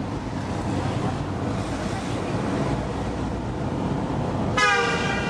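Steady road and engine noise of a moving vehicle, then a vehicle horn sounds about four and a half seconds in and is held.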